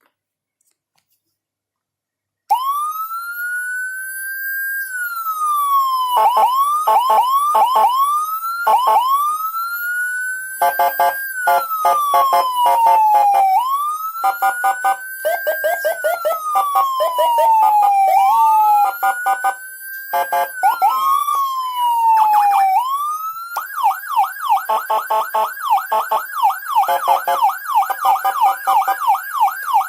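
Senken CJB100BD electronic siren module upgraded with Senken, Landun and Whelen tone sets, sounding through its speaker. About two and a half seconds in it starts a slow wail that rises and falls, broken up by short quick sweeps and bursts of rapid chatter. From about 23 seconds it switches to a fast yelp of about three sweeps a second.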